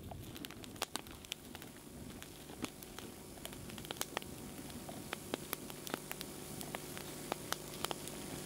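Fire of paper and wood in a fire pit crackling, with irregular sharp pops over a steady low hum that grows a little louder near the end.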